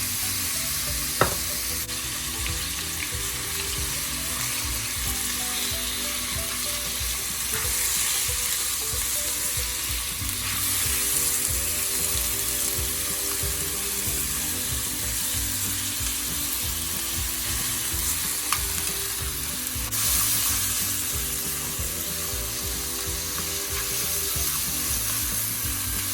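Spiced chicken pieces frying in a tablespoon of oil in a pan, sizzling steadily, with one sharp clink about a second in.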